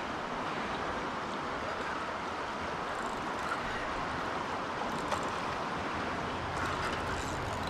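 Steady rushing of a fast-flowing river's current along a rocky bank, with a small click about five seconds in.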